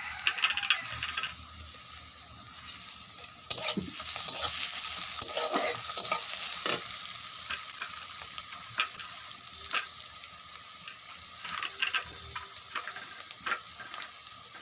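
Sliced onions sizzling as they fry in oil in a kadai, with a metal spatula scraping and clicking against the pan as they are stirred. The frying gets louder about three and a half seconds in.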